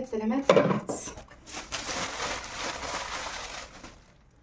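A brief spoken word or two, then about two seconds of rustling and light clattering of hard objects being handled, fading out near the end.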